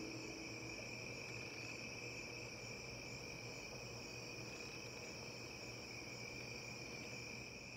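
Steady, unbroken chirring of crickets in a summer night chorus, with the last notes of a Celtic harp dying away in the first second.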